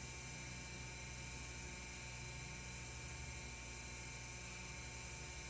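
Steady electrical hum with a faint buzz, holding level throughout; no chewing or other sound stands out above it.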